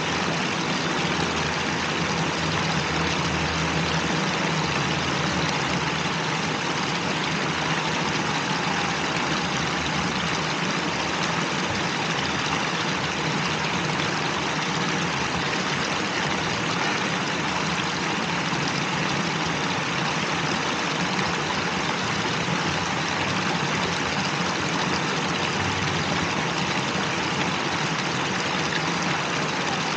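Water from a cascading wall fountain splashing steadily, with a low hum underneath that is strongest in the first few seconds.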